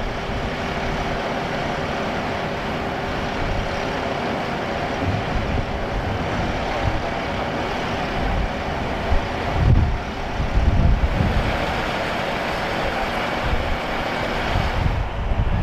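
Steady outdoor vehicle engine noise with a constant hum, and low rumbling surges that swell louder about two-thirds of the way through.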